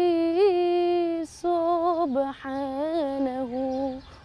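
A boy's solo voice singing Islamic religious chant (inshad) in maqam Nawa Athar, unaccompanied. A long held note with a slight waver breaks off about a second in, then a lower, ornamented phrase follows and ends just before the close.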